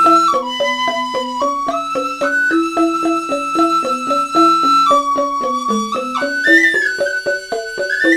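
Duet of a Balinese rindik, a bamboo xylophone, and a bamboo suling flute. The rindik's mallets strike a quick, even run of short notes while the flute holds long melody notes above them, climbing to higher notes near the end.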